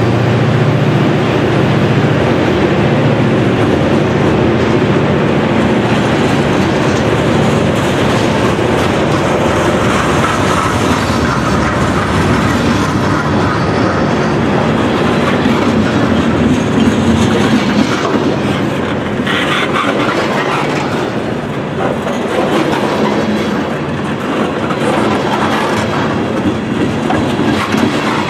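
Freight cars (boxcars, then tank cars) rolling past close by, steel wheels clattering on the rails in a steady din. The low hum of the trailing SD40-2 diesel locomotive fades away in the first couple of seconds.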